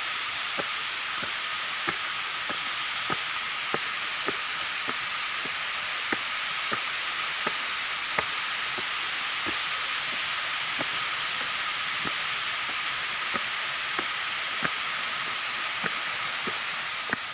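Steady rushing hiss of a waterfall, with regular footfalls on the steps of a staircase being climbed, a little more than one a second.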